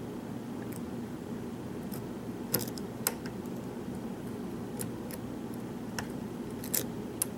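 Lock picking: a few sharp, small metallic clicks, scattered a second or more apart, as a pick works the pins of a pin-tumbler challenge lock under tension. A steady low hum runs underneath.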